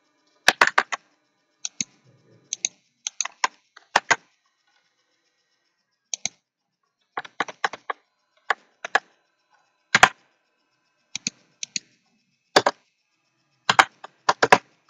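Keystrokes on a computer keyboard, typed in short irregular runs with pauses between them.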